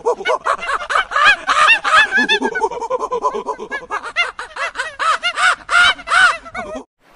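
A chorus of many animals calling at once: short, harsh calls that each rise and fall in pitch, several a second and overlapping. It cuts off suddenly near the end.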